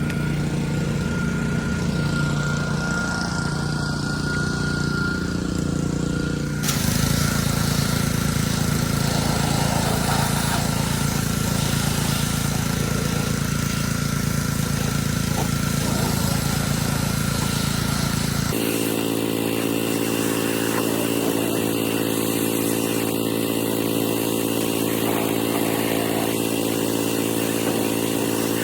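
Pressure washer's small engine running steadily with the hiss of the spray jet. The sound changes abruptly twice.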